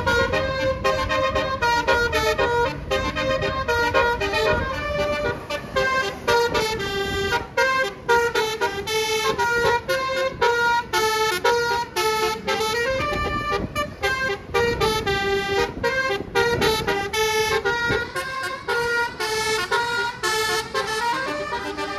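Indonesian bus 'telolet' basuri multi-tone air horn playing a fast melodic tune of short toots that change pitch several times a second, in the 'dut dut' style, over a low engine and road rumble.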